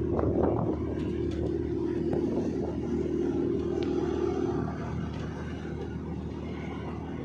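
Road noise of a moving vehicle: a steady engine hum under tyre rumble, easing a little just past the middle.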